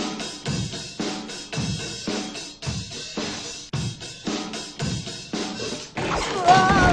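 Drum kit played in a steady beat, about two hits a second, bass drum and snare under washing cymbals. Near the end it swells into a louder stretch with a wavering pitched tone over the drums.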